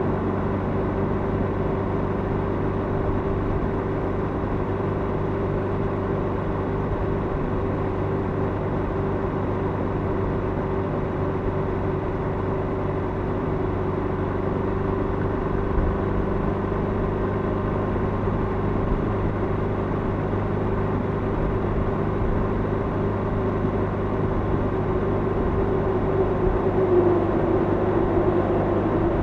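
Motorcycle engine running steadily at a constant cruising speed, inside a road tunnel. Near the end an oncoming lorry passes and the sound briefly grows louder.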